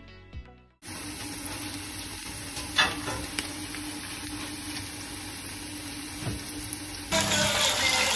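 Food sizzling in a frying pan, a steady hiss that takes over as music ends about a second in. About seven seconds in, a louder rushing noise starts.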